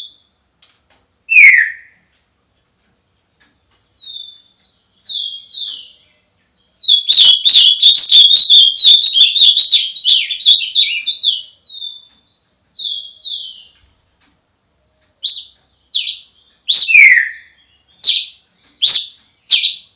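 Songbird singing in separate phrases with silent gaps: a short downward-sweeping note, a few rising whistled notes, then a long fast twittering phrase about seven seconds in, and a string of short sharp notes near the end.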